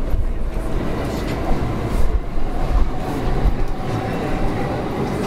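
On-board running sound of a JR East E231 series 500 Yamanote Line electric train, heard inside the car: a steady low rumble with a faint whine that edges up in pitch.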